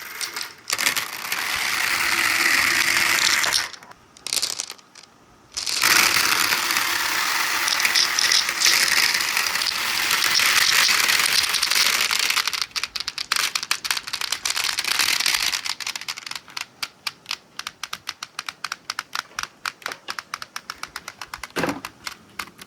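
Marbles rolling along a marble-run track with a steady rolling rumble, pausing briefly about four seconds in. From about twelve seconds in, the rolling gives way to a long run of quick, irregular clicks and clacks as marbles knock together and drop.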